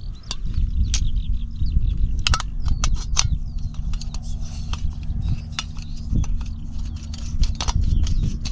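APG camping gas stove and its butane canister being handled and fitted together: a run of irregular sharp metal clicks and clinks.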